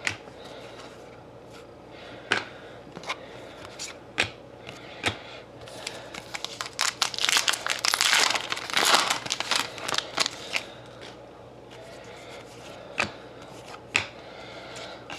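A foil trading-card pack wrapper being torn open and crinkled, densest in the middle, with scattered light clicks and taps of cards being handled before and after.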